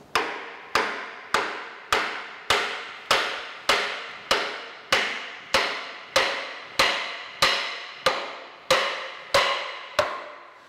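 Lead hammer striking the rusted-in iron blade-guide bar of an old J. A. Fay 48-inch band saw, about seventeen steady blows a little under two a second, each ringing briefly, as the bar is driven loose.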